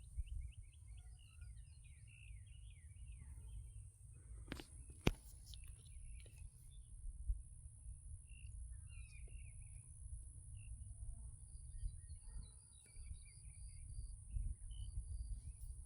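Birds chirping and singing outdoors, faint, over a low rumble. A steady high-pitched tone runs underneath, and two sharp clicks come about five seconds in.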